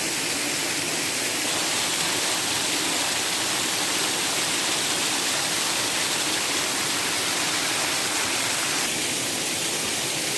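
Water rushing down a waterfall and its stream: a steady, even rush.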